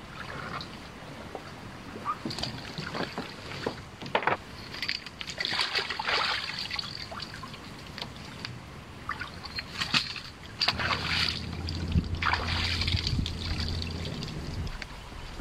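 Kayak paddle strokes splashing and sloshing water in irregular bursts, with scattered small knocks. A low steady hum comes in for a few seconds in the second half.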